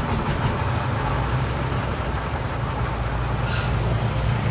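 Three-wheeled cargo truck's engine running with a steady low drone as the truck drives slowly. A brief hiss comes about three and a half seconds in.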